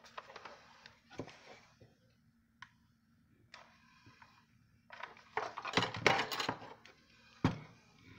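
A plastic hot glue gun being handled while a new glue stick is loaded: scattered clicks and rattles, a busier clatter about five to six and a half seconds in, and one sharp knock near the end as the gun is set down on the cutting mat.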